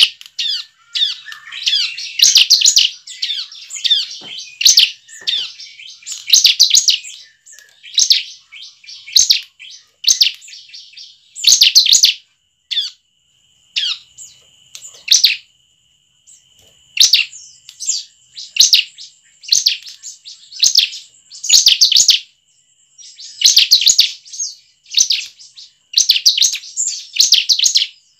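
Bar-winged prinia (ciblek) singing: repeated bursts of rapid, high, sharp chirping notes, each burst about a second long, coming every one to two seconds with short pauses between.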